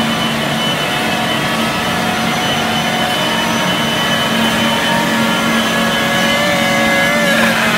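Pipe-making machine running: a steady mechanical hum and whir with several held tones.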